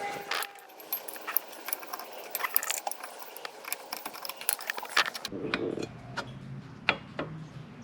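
Small steel drum-brake hardware clinking and rattling in the hands: brake shoe hold-down springs, pins and return springs being fitted. It comes as many short, irregular metallic clicks and jingles.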